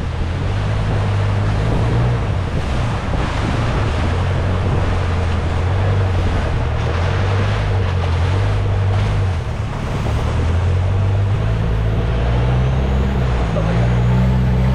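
Motorboat engine running steadily, low and loud, under a rush of wind and water. Its pitch rises a little near the end.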